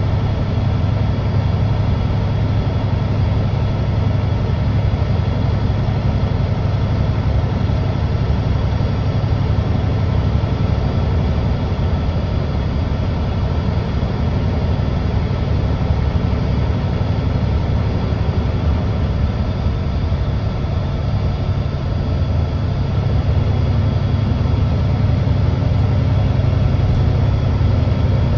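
Diesel engine of a Mercedes-Benz O530 C2G Hybrid (Citaro G hybrid) articulated bus running steadily, heard from inside the bus as a low drone, getting a little louder near the end.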